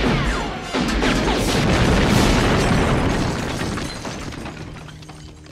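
Action-film sound effects: a pistol shot, then a large explosion that hits suddenly under a second in and rumbles, slowly dying away over the next few seconds.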